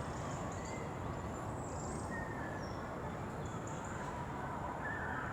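Steady outdoor background rumble and hiss at a railway platform, with a few faint short bird calls.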